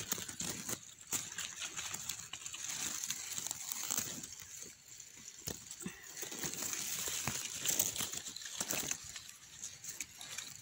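Dry leaves and grass stems rustling and crackling in irregular bursts as the forest-floor undergrowth is pushed aside and a mushroom is picked up, over a steady high-pitched hiss.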